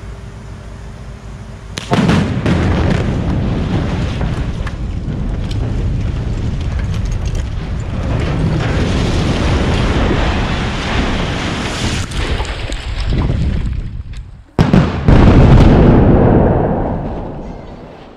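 Explosive demolition charges blowing out the base of a 40 m concrete silo tower, heard close up. A steady warning horn sounds until a sudden blast about two seconds in. About twelve seconds of loud rushing noise from the blast, debris and dust follow. After a brief break, a second sudden blast comes near fifteen seconds and dies away near the end.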